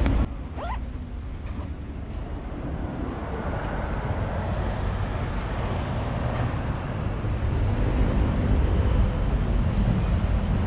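Road traffic on a wide, multi-lane city road: a steady wash of car engine and tyre noise with a low rumble. The level drops suddenly just after the start, then swells again near the end, with a brief rising squeak about half a second in.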